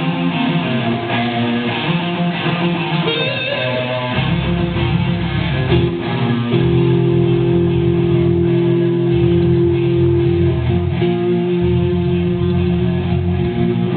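A rock band's electric guitar and bass playing at a sound check, with a long held guitar note in the middle.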